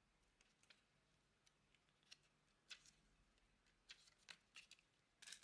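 Near silence broken by faint, scattered clicks and rustles of paper and card being handled, with a quick cluster of them near the end.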